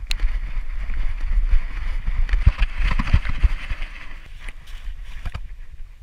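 Rustling through grass and undergrowth with many low thumps and knocks from the moving camera and footfalls, loudest over the first four seconds, then easing, with a couple of sharp clicks near the end.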